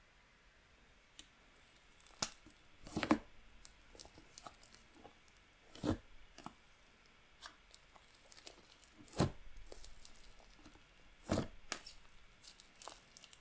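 A thick, air-inflated slime of clear slime mixed with clay being stretched and squeezed by hand, giving a sizzly crackle with about five sharper pops of air pockets bursting, starting about two seconds in.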